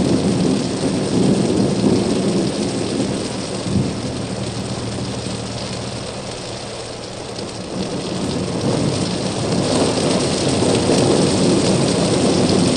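Heavy thunderstorm: a steady rush of rain with rumbling thunder, easing off in the middle and building again about ten seconds in.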